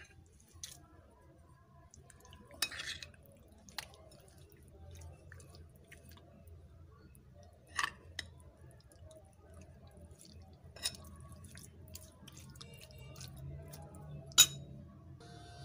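Metal spoon scraping and clinking against a ceramic bowl while mixing spices into raw chicken pieces: a handful of separate sharp clinks spread out, the loudest near the end, over a faint low hum.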